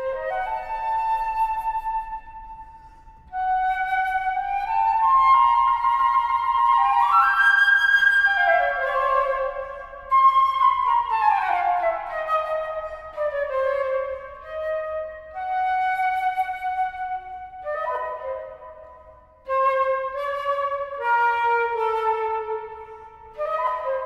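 Flute playing held melodic phrases with short breaks between them and a falling run about halfway through. In this piece the flute line stands for bush birds' calls and songs.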